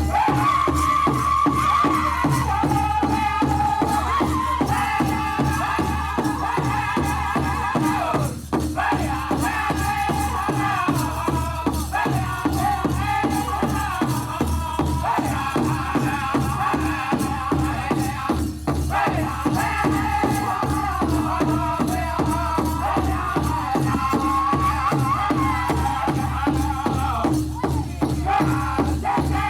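Powwow drum group singing a contest song in high voices over a steady, even beat on a big drum, with rattling from dancers' bells. The singing breaks off briefly three times between phrases while the drumming carries on.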